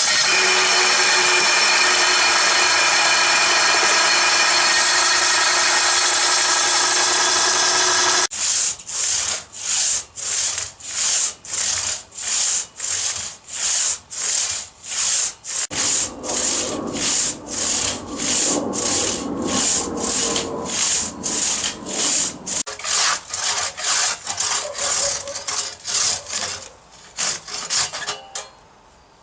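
Hand crosscut saw cutting through eucalyptus wood in steady strokes, about two a second, after a steady sound of held tones that opens the stretch and stops suddenly.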